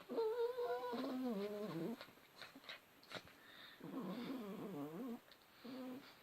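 Dog making a run of whining, warbling moans that bend up and down in pitch. There is a long one sliding downward over the first two seconds, another about four seconds in, and a short one near the end.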